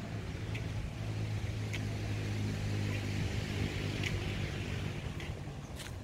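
A motor engine hums steadily and swells through the middle, with a hiss rising and falling alongside it, like a vehicle passing. Light ticks come about once a second, from footsteps on the paving.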